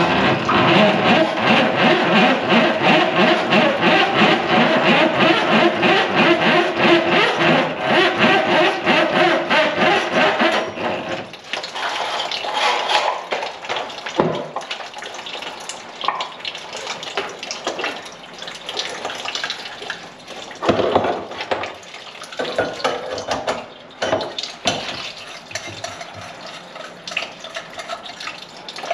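Water draining from the kitchen sink's drain pipe into a bucket, loud and rushing for about the first third, then dropping to scattered drips and clatter from the pipe and bucket.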